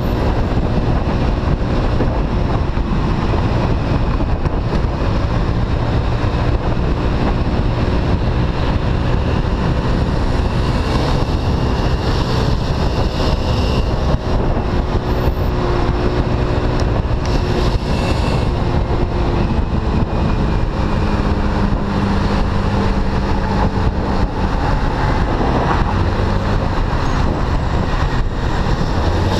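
Steady wind rush on the microphone of a moving Honda Lead scooter, with its small single-cylinder engine running underneath at cruising speed. The engine tone shifts a little past halfway.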